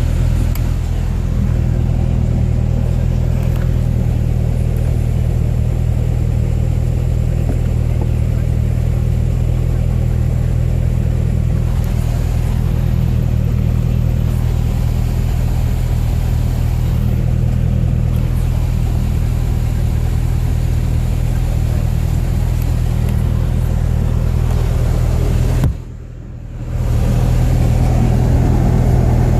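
A 2008 Chevrolet Corvette's V8 engine running steadily, with a brief drop in level near the end before it carries on.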